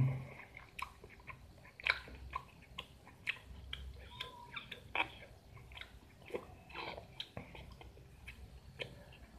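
Chewing rujak of sliced young mango, with irregular clicks and crunches, some from a spoon against the plate.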